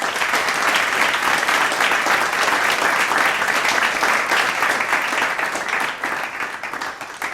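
A medium-sized crowd applauding: dense, steady clapping that starts abruptly and thins out near the end.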